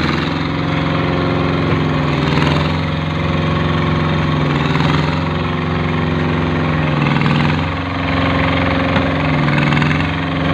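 Engine of a concrete curb-forming machine running steadily, its pitch dipping briefly and recovering every two to three seconds.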